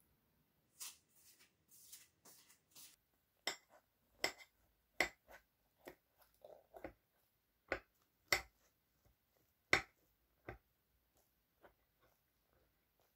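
A metal knife and fork cut a waffle on a plate. First come a few rasping sawing strokes through the waffle, then irregular sharp clinks of the cutlery against the plate, fading to faint ticks near the end.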